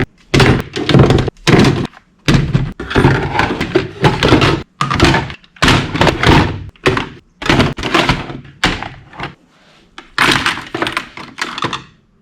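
Hard objects knocking and clattering together: well over a dozen separate thuds and knocks in quick succession, with short gaps between them.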